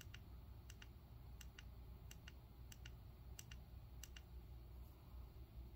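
Flashlight's push-button switch clicked repeatedly: seven quick double clicks, press and release, about two-thirds of a second apart, cycling it through its modes.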